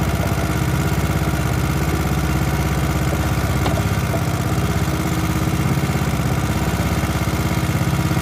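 Small 3.5 hp gasoline engine running steadily, driving a small boat under way, with a fast, even firing beat.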